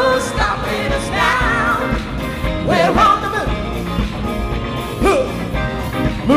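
Soul music with a band and singing, the sung lines gliding and wavering in pitch.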